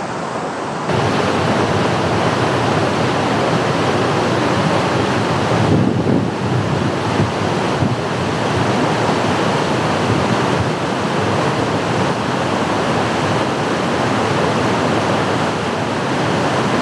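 Waterfall rushing close by: a loud, steady wash of falling water, stepping up in level about a second in.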